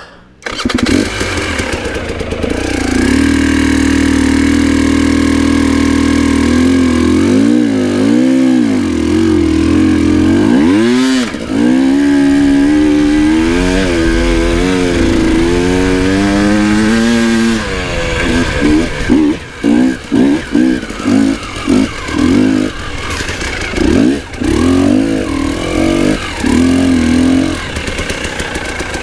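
A KTM 300 EXC TPI two-stroke enduro motorcycle engine bursts into life about half a second in and runs loud, its revs rising and falling under the throttle. In the second half it is blipped in a run of short, sharp bursts.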